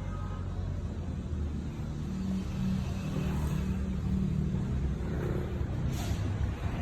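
Steady low mechanical rumble, like a running engine or machinery, growing slightly louder about two seconds in, with one sharp click about six seconds in.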